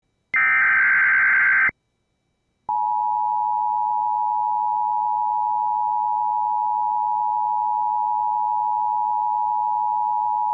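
Emergency Alert System alert: a burst of about a second and a half of screeching SAME digital header data, a second of silence, then the steady two-tone EAS attention signal for about eight seconds. The tones announce a tornado watch bulletin.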